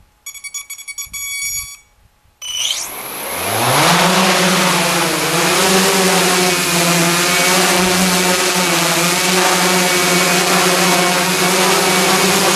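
A burst of rapid electronic beeping, then a giant hexacopter's six electric motors and propellers spin up, rising in pitch for about a second and a half. They then hold a steady, loud pitched hum with propeller wash as the craft lifts off and hovers.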